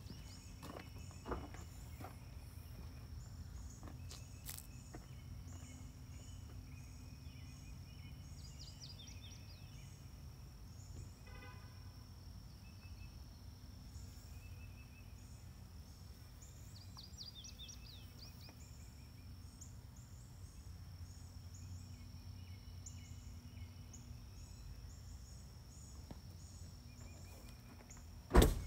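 Outdoor ambience of woods by a pond: birds chirping and calling at intervals over a faint low rumble and a steady high-pitched whine. A single sharp knock near the end is the loudest sound.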